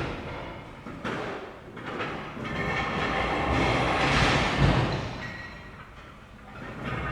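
Construction machinery running with a noisy mechanical whine, fading and swelling in waves: loudest around the middle, with dips about a second and a half in and again near the end.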